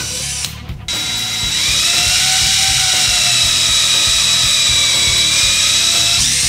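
DeWalt 20V cordless drill running: a moment of drilling a plastic sheet, a short break, then from about a second in a steady high whine as the bit bores into a hardwood branch, stopping near the end.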